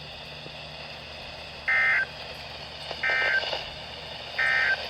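Three short bursts of EAS/SAME digital data tones on NOAA Weather Radio, each about a third of a second long and a little over a second apart, over a steady low radio hiss. These are the end-of-message (NNNN) bursts that close the Required Weekly Test.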